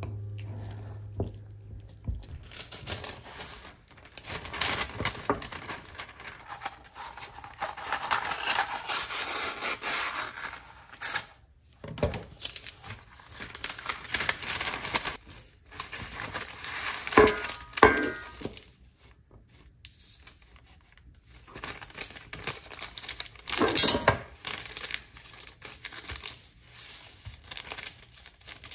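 Baking paper rustling and crinkling in irregular bursts as it is handled, laid into a white tray and folded and creased on a wooden table. A little past halfway come two sharp knocks with a brief ring.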